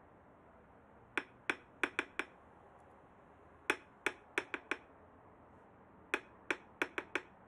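Fingers tapping on a hard surface in quick runs of five sharp taps, a run about every two and a half seconds.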